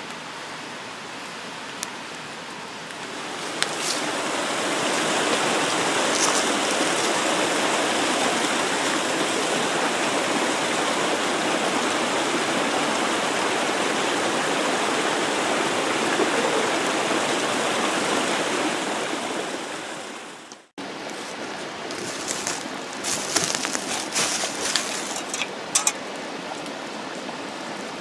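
A small waterfall spilling over rocks into a stream: a steady rush of water that swells in a few seconds in and fades away about twenty seconds in. After it, soft rustling and clicks of a hand moving among dry leaves.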